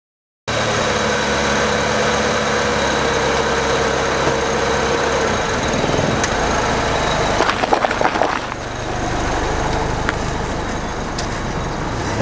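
A car engine running steadily, and a little past halfway a quick run of crunches and crackles as the tyre flattens paper cups.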